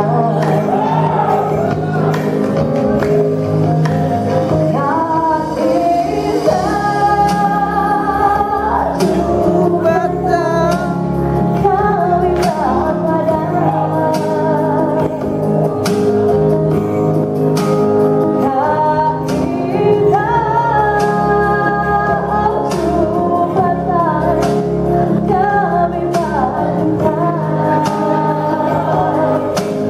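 A woman singing a song into a microphone through a PA, over band music with a steady beat and bass.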